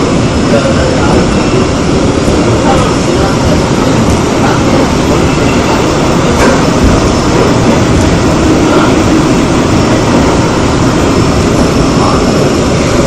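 Seoul Metro Line 2 old 2000-series resistance-controlled electric train running, a steady loud rumble with a few faint clicks.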